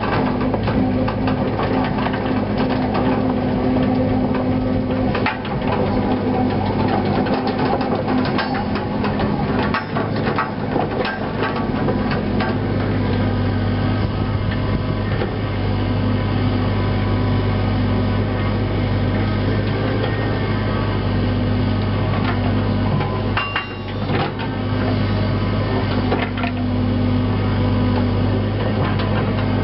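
Cat 307C mini excavator's diesel engine running steadily, getting louder about halfway through, with scattered knocks and clanks from the machine as it works.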